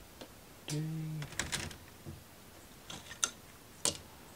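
A few sharp, separate clicks and taps of thin plywood model-kit pieces being handled, the loudest two near the end, with a brief hummed 'mm' about a second in.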